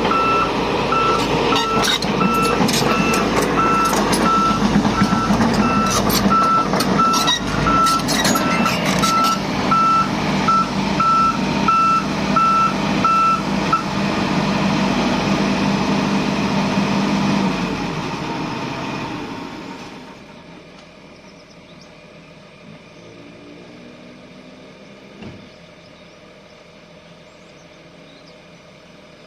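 Volvo 200/210-class excavator running loudly, with its alarm beeping at an even rate and clicks and knocks over the top. The beeping stops about halfway through, and about two-thirds of the way in the machine's sound dies down to a faint steady hum.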